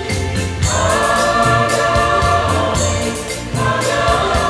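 Mixed choir singing sustained chords, moving to a new chord just under a second in and again about three and a half seconds in, over accompaniment with a steady beat.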